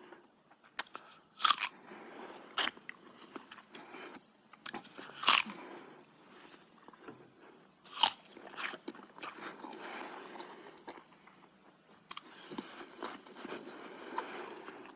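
Someone biting into and chewing crunchy food: several sharp, loud crunching bites a second or more apart, with softer crackly chewing between them.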